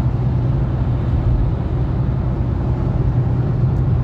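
Steady low rumble of road and engine noise heard inside the cabin of a moving car.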